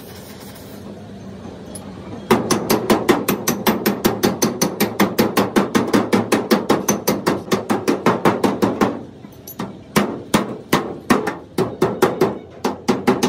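Hammer rapidly tapping the sheet steel of a car bonnet, about five blows a second, then after a short pause slower, spaced blows. The blows work a torch-heated spot, shrinking stretched metal in a dent repair.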